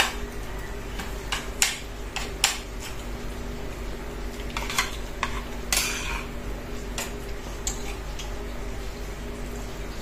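Metal fork and spoon clinking and scraping against a ceramic plate while eating rice, in irregular sharp clinks, the loudest about six seconds in. A steady low hum runs underneath.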